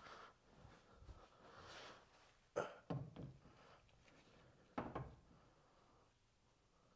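A few soft knocks, three in all, spaced over a couple of seconds against quiet room tone.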